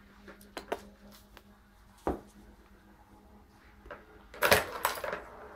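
Kitten batting the balls in a plastic tower-of-tracks toy: a few light clicks and knocks, then a louder rattling clatter about four and a half seconds in.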